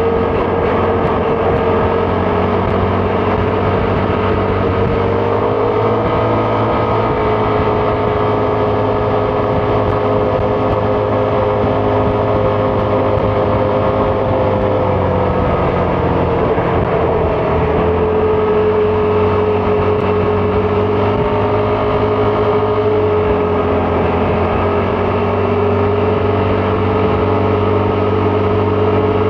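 Vespa GTS 300 scooter's single-cylinder engine running steadily while riding, its pitch dipping and rising slightly a few times as the speed changes.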